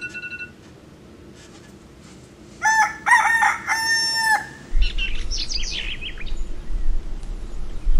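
A rooster crows once, a cock-a-doodle-doo of about two seconds, followed by high chirping of small birds over a low rumble. A short electronic beep sounds at the very start.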